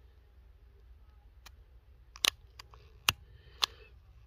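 Long-nosed utility lighter's trigger clicked over and over, about five sharp clicks at irregular half-second gaps, most of them in the second half. The lighter sparks but barely catches.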